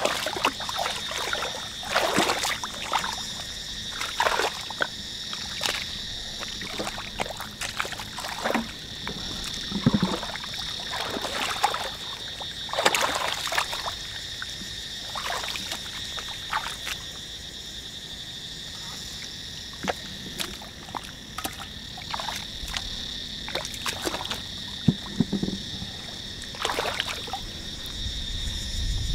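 Hands sloshing and splashing in shallow muddy water, groping for fish, in irregular bursts. Behind it a steady high-pitched animal chorus.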